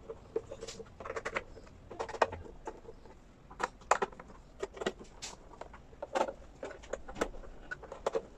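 Irregular sharp clicks and taps of a screwdriver and plastic housing as the vanity mirror's back cover is screwed back together.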